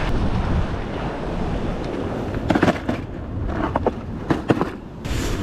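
Wind buffeting the microphone over the sea surf, with a handful of sharp knocks and clicks in the second half from spinning rods and reels being handled among the rocks.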